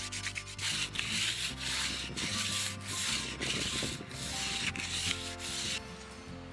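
Sandpaper rubbed by hand over an oak beam, smoothing the dried wood-filler patches. A few quick short strokes come first, then longer back-and-forth scratching strokes about two a second, which stop about a second before the end. Soft background music runs underneath.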